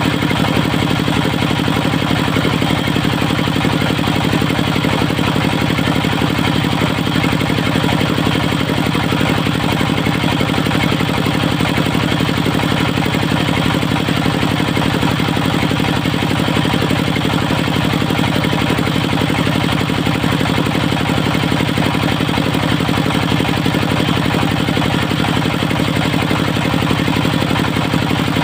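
Engine of a mobile circular sawmill running steadily at an unchanging speed, with a fast, even firing beat.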